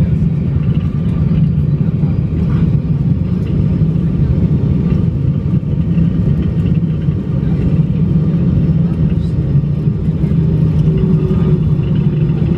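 Steady low rumble inside the cabin of an MD-80 jetliner rolling along the runway after touchdown: engine and wheel noise. A faint whine drops slightly in pitch near the end.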